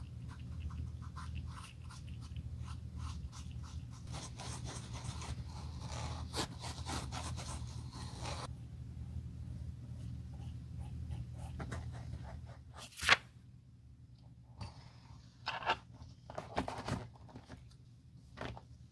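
Small hand tools scraping, dabbing and spreading filler on the leather of a loafer, a run of light scratchy ticks over a steady low hum. About thirteen seconds in there is one sharp knock, followed by a few softer taps as the shoe is handled.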